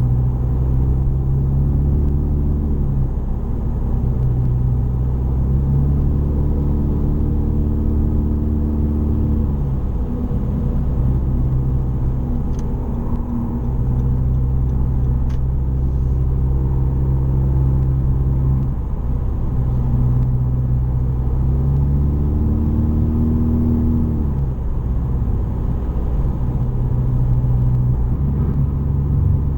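Straight-piped exhaust of a 2017 Honda Civic Sport hatchback (mufflers and resonator deleted), its 1.5-litre turbo four-cylinder droning steadily while cruising, heard from inside the cabin. The pitch dips and rises slightly a few times.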